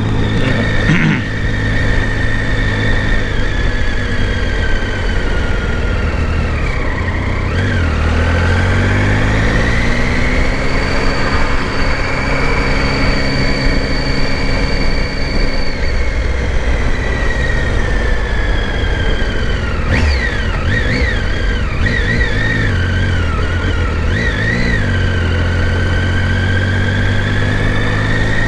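Motorcycle engine running under way in traffic, its revs climbing, holding and then easing off. A high whine rises and falls with the engine speed over steady road and wind noise.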